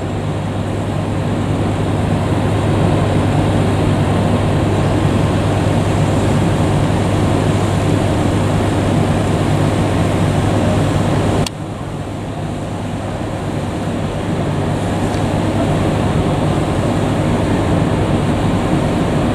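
KiHa 200 diesel railcar running, a steady engine drone with a strong low hum. About eleven seconds in the sound drops suddenly, then builds back up.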